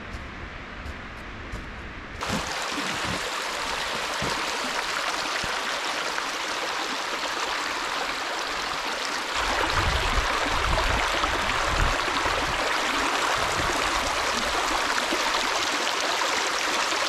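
Rushing water: a steady hiss that comes in suddenly about two seconds in and grows louder about halfway through, with low rumbles underneath in the second half.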